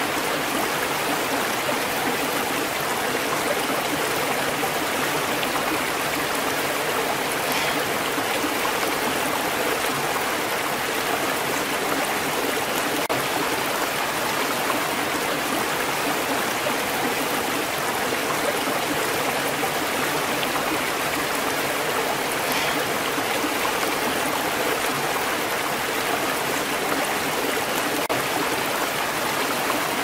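Waterfall: water pouring down a rock face in a steady, unbroken rush.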